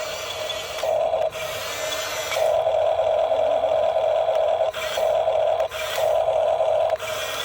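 Small electric motor and gearbox of a radio-controlled construction model whining, surging louder in four runs, the longest about two seconds, with a quieter whine in between.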